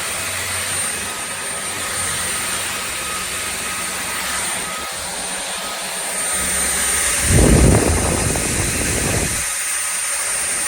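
Shark Clean & Empty cordless stick vacuum running with a steady whir and a thin high whistle. About seven seconds in, a louder low rumble lasts about two seconds.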